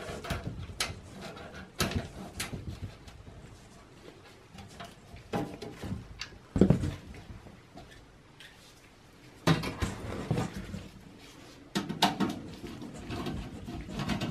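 Handling noise of a desktop PC's sheet-metal case and parts being moved on a table: scattered clicks, knocks and scrapes, the loudest a single knock about six and a half seconds in, with more knocks in clusters near the end.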